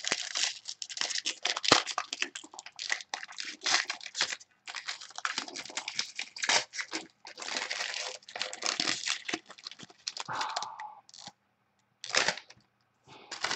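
Foil trading-card pack wrapper crinkling and being torn open by hand, a dense crackle that pauses briefly near the end before a last short rustle.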